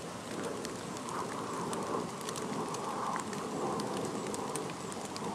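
Light rain falling outdoors: a steady patter with scattered tiny drop ticks.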